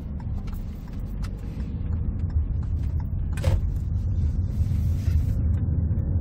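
Hyundai Tucson 1.6 turbo petrol engine and road noise heard inside the cabin, a low rumble that grows louder as the car accelerates gently out of a U-turn. A single short, sharp knock about three and a half seconds in.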